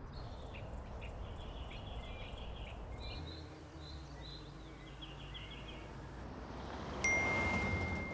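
Rural outdoor ambience with small birds chirping over a low rumble. About seven seconds in, a single high, bell-like ding sounds and rings on steadily.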